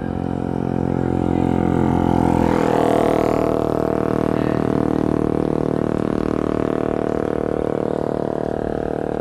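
Motor and propeller of a radio-controlled model airplane droning steadily in flight, with its pitch shifting as it grows loudest about three seconds in, then holding steady.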